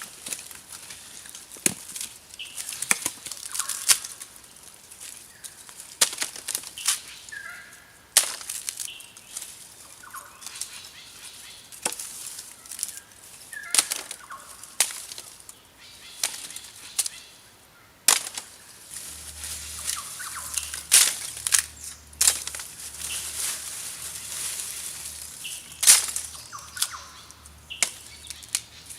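Irregular rustling and scraping with sharp knocks scattered throughout, the sounds of hand work.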